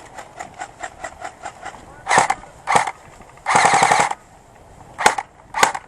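Airsoft guns firing on full auto: a run of faint, rapid shots, then several short, loud bursts and one longer burst of about half a second in the middle.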